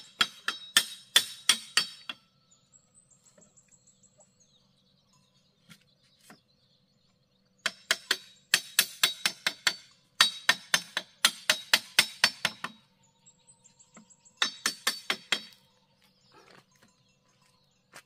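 Machete blade striking bamboo in quick runs of sharp, clinking knocks, about five a second, with pauses of a few seconds between runs.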